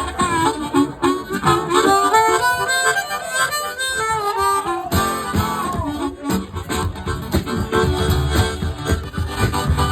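Harmonica playing a song intro, its notes bending up and down in pitch, over strummed guitar.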